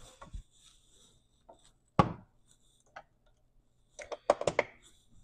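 Kitchen utensils and cookware being handled: a single sharp knock about two seconds in, then a quick run of clicks and knocks about four seconds in.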